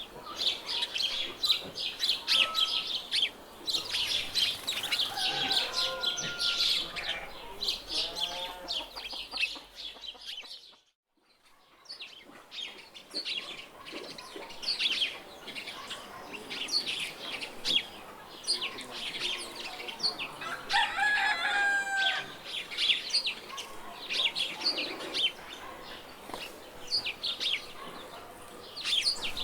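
Farmyard birds: small birds chirping continuously, with chickens clucking and a rooster crowing twice. The sound drops out briefly near the middle.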